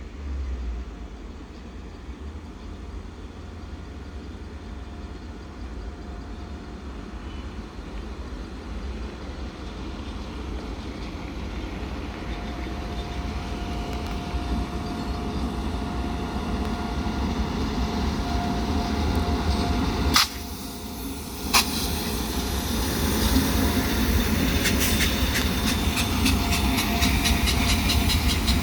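Goods train hauled by Indian Railways electric freight locomotives (a WAG-9HC and two WAG-7s) approaching: a low rumble that grows steadily louder, with a faint steady tone over the second half. In the last few seconds the wheels clatter over the rail joints as the train draws close, and there is a brief cutout between two sharp clicks about twenty seconds in.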